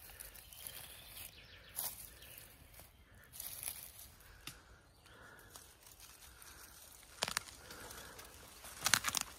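Dry forest-floor leaf litter and twigs rustling and crackling underfoot and under hand, in scattered crackles with a louder cluster near the end.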